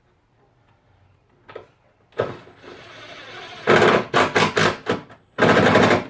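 A handheld power driver running a 10 mm bolt in, in several short trigger bursts and then one longer run near the end.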